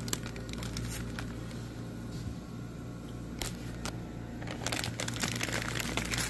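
Clear plastic fish shipping bags crinkling as they are handled and pressed, in scattered crackles that come thicker near the end, over a steady low hum.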